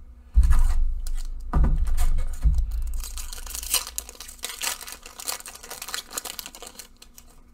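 A Zendikar Rising draft booster pack's foil wrapper being handled and torn open: a few dull bumps in the first couple of seconds, then several seconds of crinkling and tearing.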